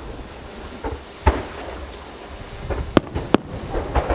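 Aerial firework shells bursting: a series of sharp bangs at uneven intervals, with two of the loudest in quick succession about three seconds in.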